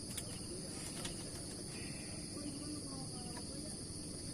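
Steady high-pitched insect chirring over a low background rumble, with faint distant voices.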